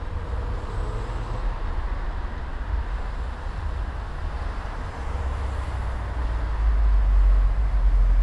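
Steady low rumble of road traffic with a general noise haze over it, growing louder about six and a half seconds in.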